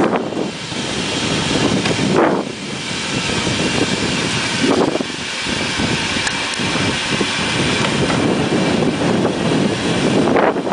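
Isle of Man Railway No. 4, a Beyer Peacock 2-4-0 tank engine, pulling away from the platform: a steady hiss of escaping steam, with heavy exhaust chuffs every two or three seconds.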